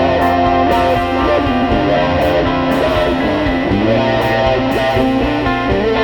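Music: a guitar-led instrumental track with an electric guitar and a steady beat.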